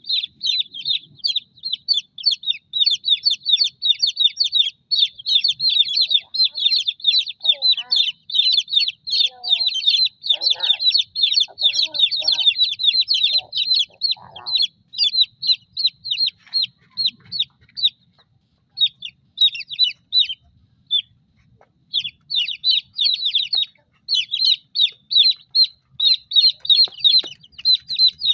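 A crowd of chicks peeping: many high, short, falling peeps in a near-continuous chorus, with a few lower calls mixed in between about 7 and 15 seconds in. The peeping thins out briefly a little after 21 seconds, then picks up again.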